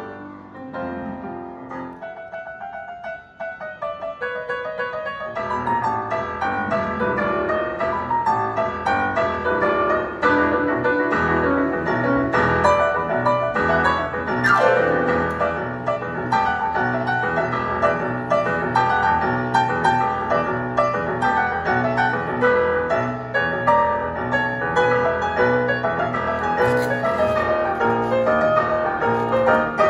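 Solo piano being played: a few sparse notes at first, then fuller, louder playing with a steady bass line from about five seconds in.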